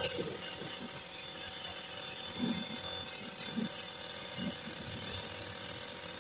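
Compressed-air paint spray gun hissing steadily as it sprays paint onto a steel tractor wheel rim, with a steady machine hum underneath.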